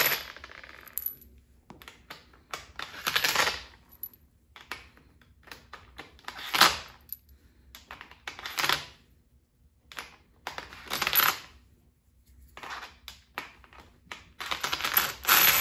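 Steel bolts clinking in a palm and being slid one after another into the aluminum T-track of an awning rail, each scraping and rattling down the channel. There are sharp clicks throughout and about five longer scrapes.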